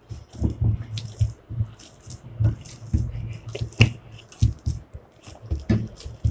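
Hands kneading soft wheat-flour dough greased with ghee in a glass bowl, an irregular run of wet squelches and soft thumps with a few sharp clicks.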